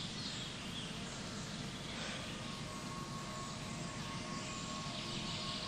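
Quiet, steady background ambience: an even hiss and low rumble with no distinct events, and a faint steady tone from about two seconds in.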